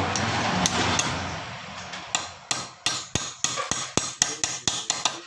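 A quick run of about a dozen light hammer taps, roughly three to four a second, starting about two seconds in, driving a new CVT bushing the first millimetre into its seat. Before the taps there is steady background noise with a low hum.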